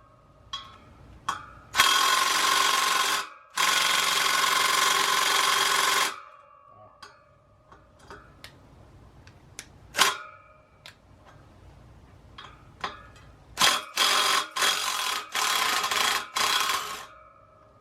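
Handheld power tool spinning out the rear sprocket bolts on a motorcycle wheel hub: two steady runs of about one and a half and two and a half seconds, then four or five short bursts near the end, with light metallic clicks of tools in between.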